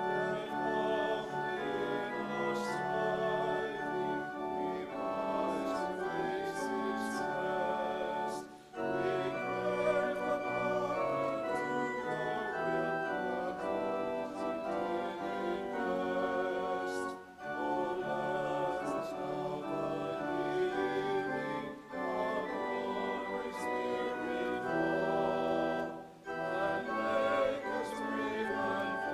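A choir singing a hymn with pipe organ accompaniment, phrase by phrase, with brief breaks between lines.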